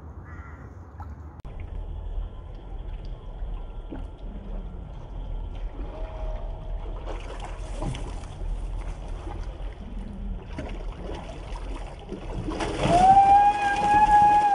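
Pond water sloshing and lapping as fish and turtles crowd the surface. About twelve and a half seconds in, a monitor lizard lunges into the fish with a loud splash and thrashing water, and a long high-pitched cry from a person rings out over it.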